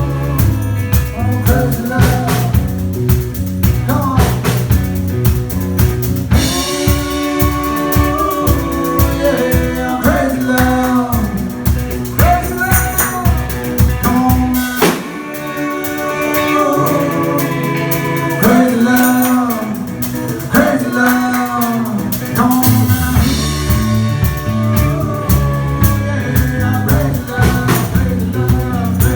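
Live rock band playing: drum kit, electric guitar and bass under a wavering lead vocal line. About halfway through, the bass and drums drop out for a moment before the full band comes back in.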